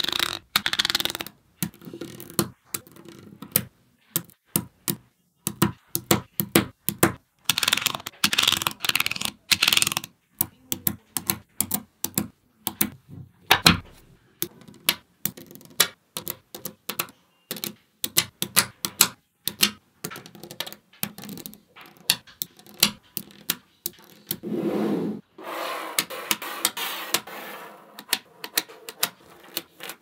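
Small magnetic balls clicking and clacking as rows snap together and are pressed onto a magnet-ball block and separated with a plastic card. Irregular sharp clicks come in quick rattling runs with short pauses between.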